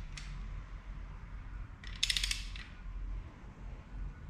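Ratchet of a torque wrench clicking as a timing cover bolt is wound in: a single click near the start, then a quick run of about ten clicks around the middle.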